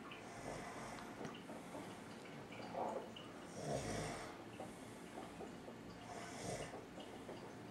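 Snoring: a rough, noisy rasp that swells and fades with each breath, several breaths in a row.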